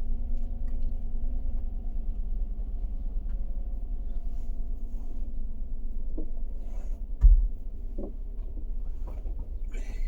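Jeep Renegade engine idling steadily, with one dull thump about seven seconds in.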